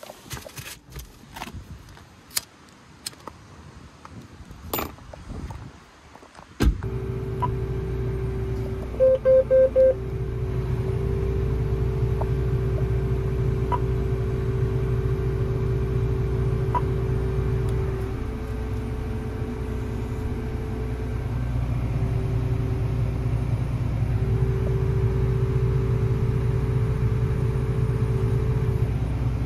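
John Deere S660 combine's diesel engine running steadily at about 1200 rpm, heard from inside the cab. It sets in suddenly about seven seconds in, after a few seconds of scattered clicks and knocks. Over it come four short loud beeps a few seconds later, and a steady two-note tone that keeps switching off and on.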